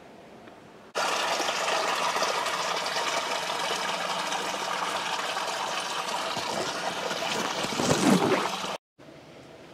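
Small woodland creek running over rocks, a steady watery rush. It starts abruptly about a second in and cuts off shortly before the end.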